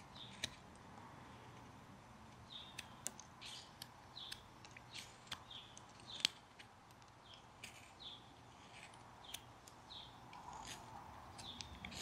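Faint, irregular short clicks and scrapes of a Flexcut detail knife taking small slicing cuts in a basswood block.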